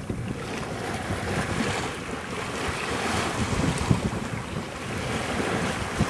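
Water rushing and splashing along the hull of a sailboat under sail, with wind buffeting the microphone. The water's hiss swells and eases.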